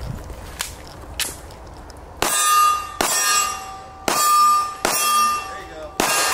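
Five pistol shots at about one a second, starting about two seconds in, each followed by the ringing clang of a hit steel target.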